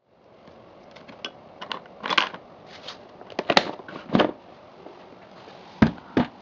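Hard plastic motorcycle luggage case being handled: its key latch clicking and the lid clacking, with scattered light clicks, louder clacks about two and three and a half seconds in, a heavier knock near four seconds, and two sharp knocks close together near the end.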